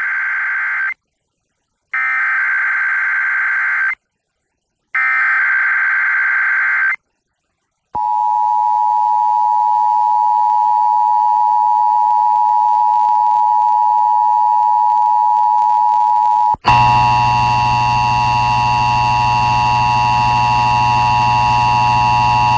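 Emergency Alert System test tones. The digital SAME header sounds as a raspy, warbling data burst repeated three times, about two seconds each with a short gap between. It is followed by the EAS two-tone attention signal, a steady dual tone held for about eight seconds. About two thirds of the way through, this gives way to a harsher, buzzier steady tone that runs on.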